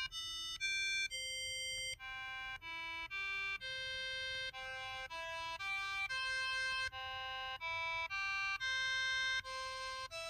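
KTF-TR2000 mobile phone's keypad button tones: a quick run of synthesized, organ-like notes, about two a second, each note a short clean tone with a different pitch, together forming a melody.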